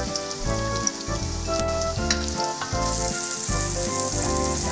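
Shallots, garlic and lemongrass frying in oil in a wok, a steady sizzle. About three seconds in the sizzle grows brighter and louder as spice powder is tipped into the hot oil. Background music plays along.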